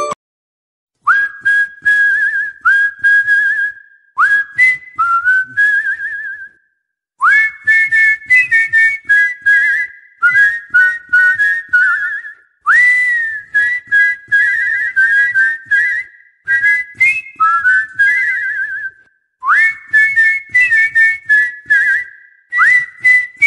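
A whistled melody in short phrases, each opening with an upward swoop and running into warbling trills, over a steady clicking beat; the phrases are separated by brief gaps of complete silence.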